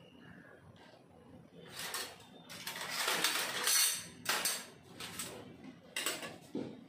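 Kitchen utensils being handled: a stretch of rustling and clattering, loudest about halfway through, then a few sharp knocks as a slotted steel spatula is set down on the glass-top stove.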